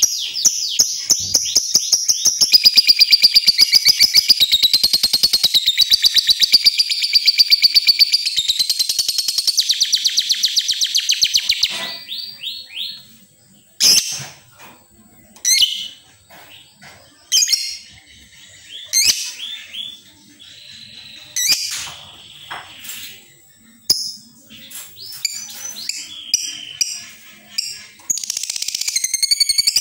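Lovebird singing: a long, rapid, high-pitched chattering trill for the first dozen seconds, then broken into separate short chirps and squeaky calls with pauses, and the fast chatter starts again near the end.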